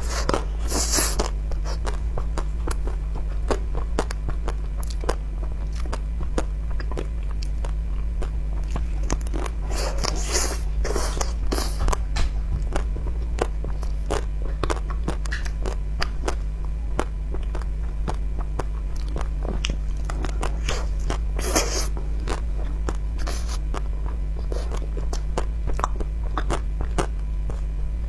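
Close-miked biting and chewing of an ice cream bar, its hard pink coating cracking in sharp crunches and crackles. The bites are loudest about a second in, around ten to twelve seconds in, and again near twenty-one seconds, over a steady low hum.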